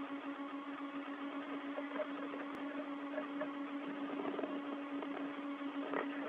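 Steady hiss and hum of an open spacewalk radio loop: one low steady tone with a fainter one above it, and a few faint crackles in the second half.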